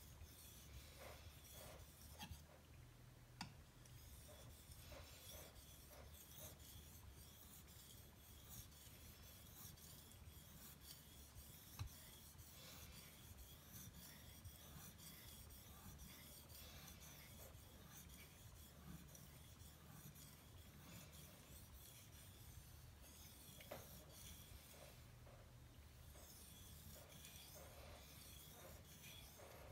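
Knife blade rubbing back and forth on a wet 6000-grit Suehiro waterstone while the edge is polished: a faint, continuous scraping that stops briefly twice, with an occasional light click.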